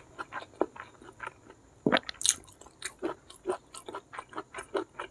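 Close-miked chewing and biting: wet mouth smacks and small crunches at about three a second from eating rice with blood cockles in chili sambal and stink beans, with a louder smack about two seconds in.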